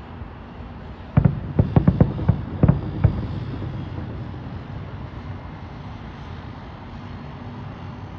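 Aerial fireworks bursting: a rapid cluster of about nine sharp bangs over two seconds, starting about a second in, followed by a low rolling rumble that slowly fades.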